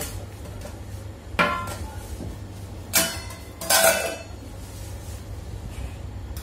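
Stainless-steel masala dabba (round spice box) being opened. The steel lid and a spoon knock against the tin in three sharp metallic clanks, each ringing briefly, about one and a half, three and four seconds in.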